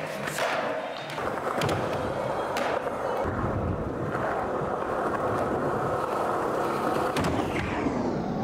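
Skateboard wheels rolling on smooth concrete, broken by a few sharp wooden clacks of the board popping and landing during flip tricks.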